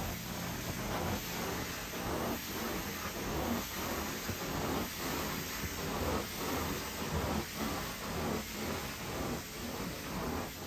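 Carpet-cleaning equipment running: a steady hiss that swells and dips about twice a second.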